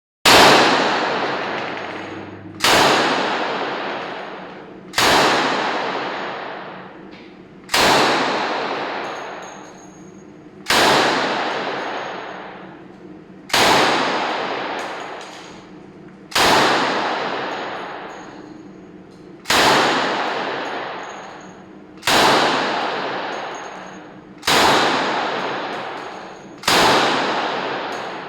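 Thompson M1 submachine gun in .45 ACP fired single shots at a slow, even pace, about eleven shots each two to three seconds apart. Each shot is followed by a long echo that fades over about two seconds.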